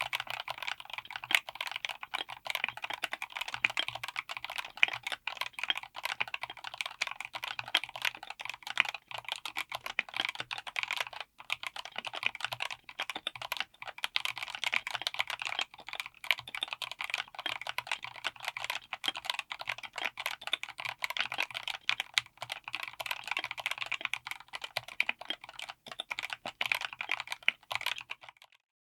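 Fast, continuous typing on a mechanical keyboard with Outemu Cream Pink linear switches on an FR4 plate in an aluminium case: a dense stream of keystroke clicks that stops shortly before the end.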